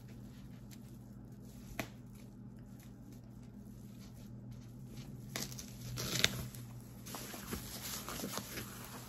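Faint rustling and crinkling of gift packaging being handled, with a single sharp click about two seconds in and louder rustles from about five seconds on, over a faint steady low hum.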